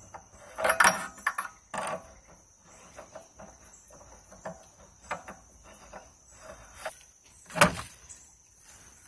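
Metal clicks and taps as parts of a P180 water pump are handled and spun on by hand, with one louder knock near the end.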